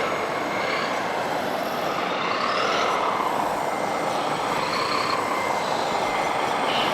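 Radio-controlled model trucks and excavator running, their motors and gearing whining and rising and falling in pitch as they work.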